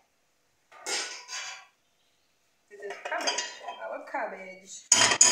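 Metal pots and cooking utensils clattering, with scraping and knocking and two sharp clanks near the end.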